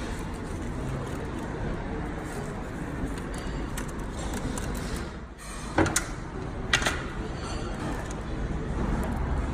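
Busy street ambience: a steady din of traffic. Past the middle it dips briefly, then come two sharp clacks about a second apart.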